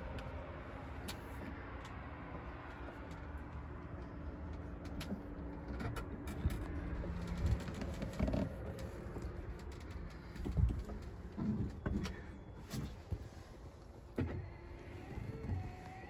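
A low, steady engine hum that fades away over the first half, followed by scattered dull knocks and rustling from handling inside a truck cab.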